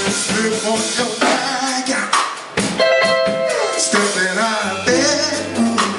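Live band playing soul/R&B with drum kit and guitar, with sung vocal lines.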